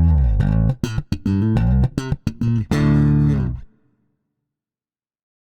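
Peavey T-40 electric bass playing a quick phrase of plucked notes, ending on a longer held note that dies away a little before four seconds in.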